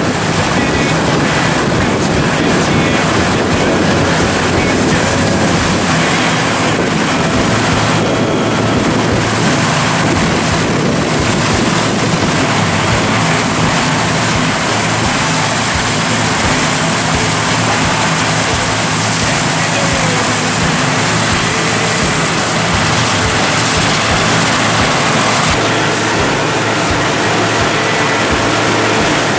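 John Deere combine running steadily as it direct-cuts canola with a draper header, with wind on the microphone. Near the end it gives way to the unloading auger pouring canola seed into a grain cart, a steady rushing hiss over the machine.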